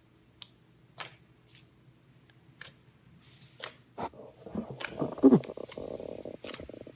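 Slime being squeezed and stretched by hand: scattered sharp pops and clicks, then from about four and a half seconds in a dense run of crackling, squelching pops, loudest a little past five seconds.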